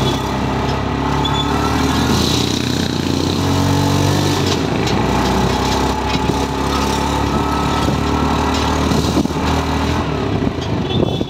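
A small motor vehicle's engine running steadily while riding along a city street, with road and traffic noise.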